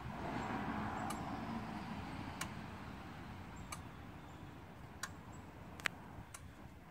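Fuel injectors of a Ford 6.0 Powerstroke diesel clicking one at a time, about one click every second and a bit, over a low rushing noise that swells in the first couple of seconds. This is the key-on, engine-off injector buzz test on a warm engine: each click is one injector's spool valve being shifted by the engine computer.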